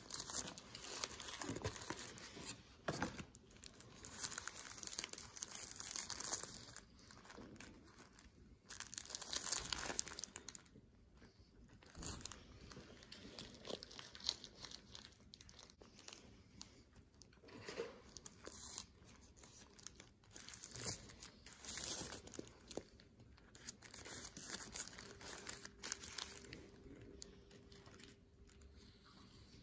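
Paper napkin, paper wrappers and cardboard food boxes rustling and crinkling as they are handled, in irregular bursts that are loudest in the first several seconds and again around ten seconds in.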